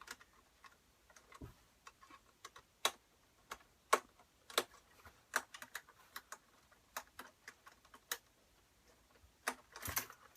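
Faint, irregular clicks and ticks of a Phillips screwdriver turning out the small screws of an iMac's RAM access door, metal on metal.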